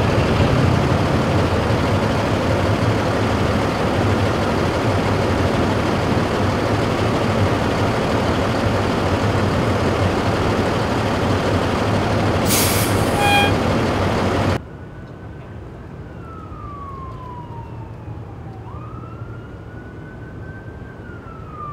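Fire engine running at idle, a loud steady rumble with hiss, with a brief high hiss about twelve seconds in. About fourteen seconds in the sound cuts to a quieter street where an emergency siren wails, rising and falling.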